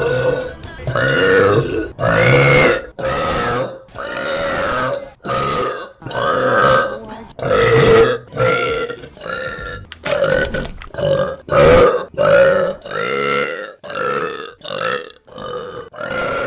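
A young woman burping loudly, about twenty burps one after another, each lasting under a second.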